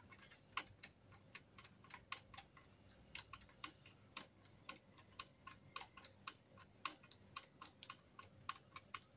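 Hand screwdriver driving a screw through a metal bracket into a wooden cot post: a run of faint, short clicks at an uneven pace of two to four a second as the handle is turned and regripped.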